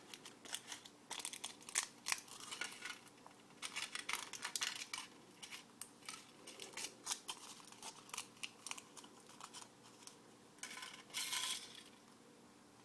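Foil wrapper of a Kinder Surprise chocolate egg being peeled back by hand. It makes a run of small crinkles and crackles, with a louder rustle of the foil about eleven seconds in.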